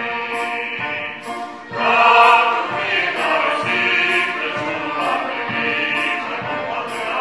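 Christmas carol played on two violins with electric keyboard and drums, a cymbal tapped on each beat about once a second, with voices singing along. The music swells louder about two seconds in.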